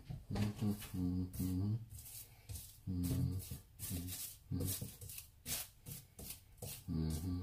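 Plastic cling film crinkling and crackling in many short bursts as hands smooth and press it down, with a low voice sounding in short snatches in between.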